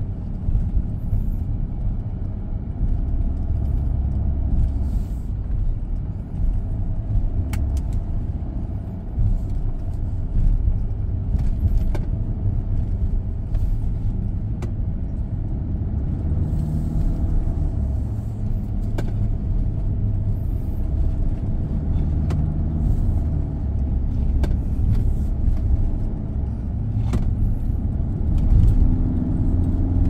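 SsangYong Rexton Sports Khan pickup, with its diesel engine, driving slowly over an off-road course: a continuous low engine and drivetrain rumble whose pitch rises and falls gently, with a few sharp knocks from time to time.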